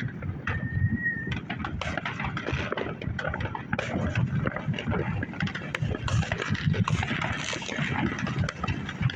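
Many consumer fireworks going off all around: a dense, continuous string of pops, bangs and crackles with a low rumble, echoing off nearby buildings, and a short high whistle about half a second in.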